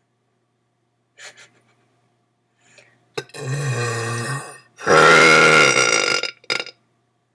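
Two long deliberate belches back to back a little past halfway, the second louder and longer, each lasting over a second.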